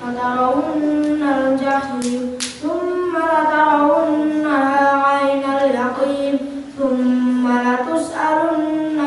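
A boy chanting Qur'anic recitation in Arabic into a microphone, in long, held melodic phrases with brief pauses for breath.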